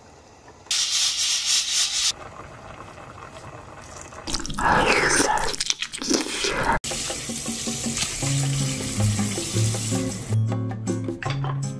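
Tap water running into a stainless steel sink over raw pork back ribs, with background music and a low bass line coming in about eight seconds in. Before the water, a few seconds of louder, uneven noise.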